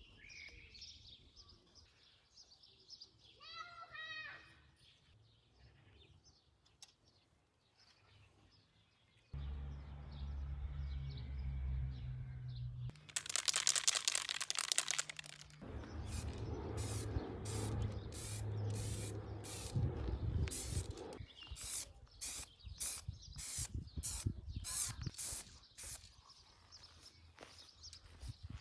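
Aerosol spray paint can hissing: one long spray about halfway through, then a run of short bursts. A bird chirps briefly near the start.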